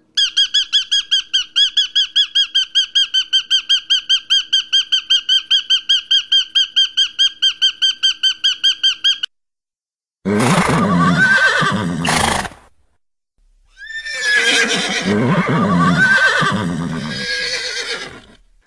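A bird's high call repeated rapidly and evenly, about five times a second, for some nine seconds; then a horse whinnying twice, each whinny long and loud.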